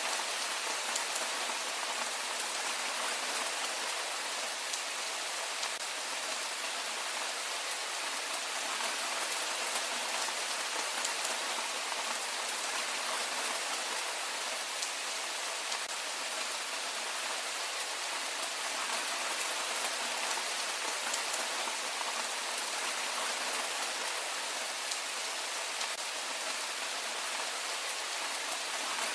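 Heavy rain falling steadily: an even hiss of many small drops.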